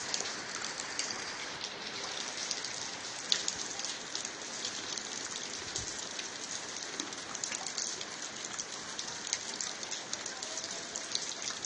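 Steady rain falling on wet concrete paving stones, with many fine drop ticks and a sharper tick about three seconds in.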